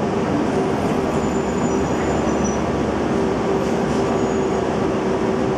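Interior noise of an Orion VII Next Generation CNG transit bus under way: its compressed-natural-gas engine and road noise make a steady drone with a steady hum running through it.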